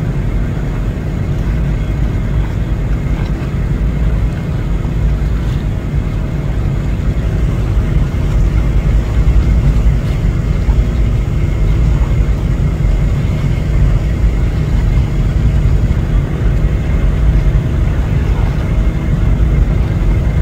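Steady low engine rumble with a faint steady hum above it, growing a little louder about eight seconds in.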